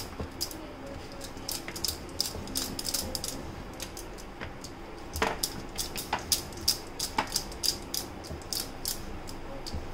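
Wooden rolling pin rolling out dough on a wooden board: a string of quick, irregular clicks and clacks of wood on wood, with a few louder knocks in the middle.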